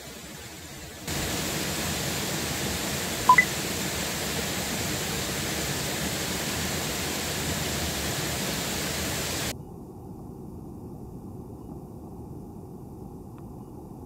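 Water spilling over a small weir into a creek pool: a steady rushing hiss that starts abruptly about a second in and cuts off abruptly about two-thirds of the way through, leaving a fainter, duller hiss. A single brief high ping sounds about three seconds in.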